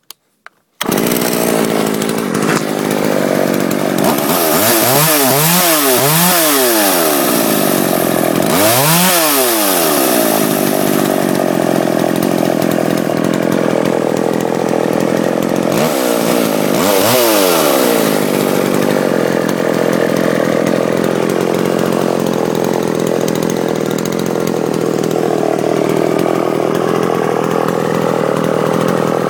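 Norwegian Jobu LP6BV two-stroke chainsaw, with a new chain on a 15-inch Windsor bar, idling and revved in several short throttle bursts, the pitch rising and falling each time. Its carburettor is adjusted to run on Stihl eco (alkylate) fuel.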